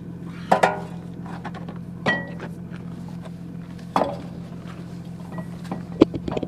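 Sharp metallic knocks and clinks, four or five of them a second or two apart, each with a short ring, over a steady low hum.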